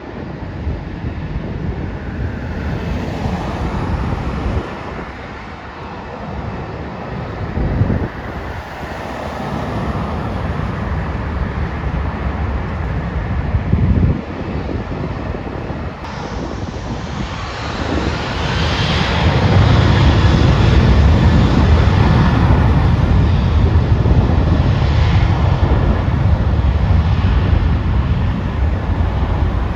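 Jet airliner engines running as a plane passes, growing louder over the second half. Wind buffets the microphone, with two brief thumps.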